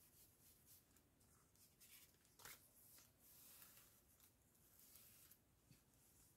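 Near silence with faint paper rustling and a few light taps as paper craft pieces are handled, the clearest tap about halfway through.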